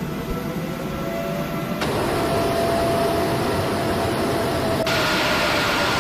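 Jet aircraft engines running: a steady roar with a high whine over it, changing abruptly in level and tone twice.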